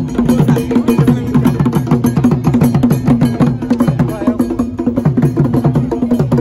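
Traditional Asante drums played in a fast, busy rhythm: rapid dry strikes like a wood block over pitched drum strokes whose notes drop quickly after each hit, with crowd voices underneath.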